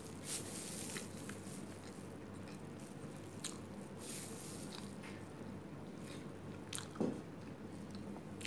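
Chewing food with the mouth closed, soft wet mouth sounds, with a few short sharp crackles from plastic food-handling gloves and a paper wrapper being handled.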